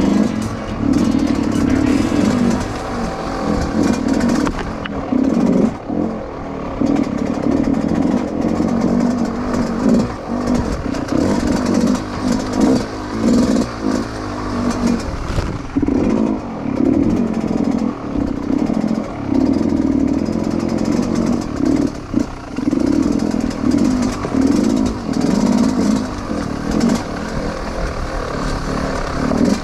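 Dirt bike engine revving up and down over and over as it is ridden off-road, with rattling and clatter along the way.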